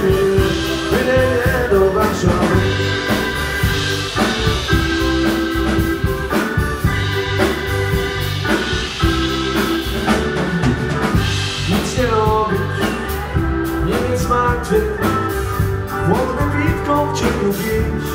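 Live dance band playing an upbeat instrumental passage between sung verses: drum kit keeping a steady beat under keyboard and electric guitar lines.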